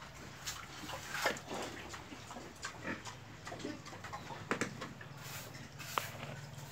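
A sow and her piglets grunting, short scattered grunts and snuffles a second or so apart.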